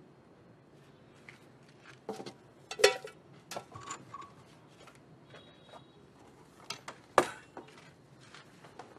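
Scattered handling noises in a small room: light knocks, clicks and rustles as a man takes a pith helmet down from its hook and gathers up clothing. The sharpest knock comes about three seconds in, and another about seven seconds in.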